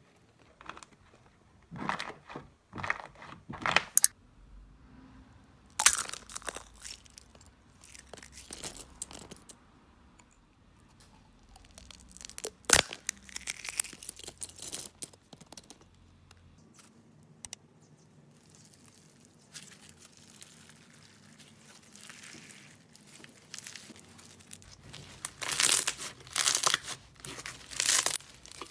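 Slime and brittle pieces being pressed, torn and crushed by hand: irregular bursts of crackling and tearing, with one sharp snap about halfway through and a run of louder crackles near the end.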